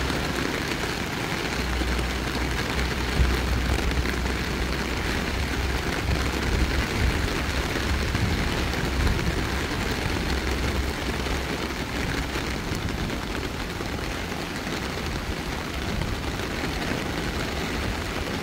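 Heavy rain falling onto floodwater and pavement, a steady dense hiss, with a deep rumble that comes and goes through the first half.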